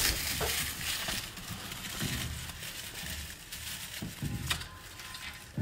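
Dry palm-frond kindling rustling and snapping as it is handled and pushed into a wood fire under a large cooking pot, with a few sharp snaps and a low rumble that comes and goes.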